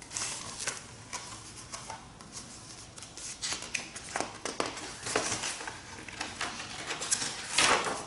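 Paper book being handled and its pages turned: irregular rustles and light taps, with one louder rustle near the end.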